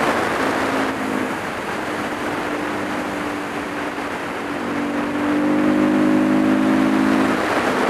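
Supermoto motorcycle engine running steadily under way, with wind rushing over the microphone. The engine note grows louder about five seconds in and falls away shortly before the end.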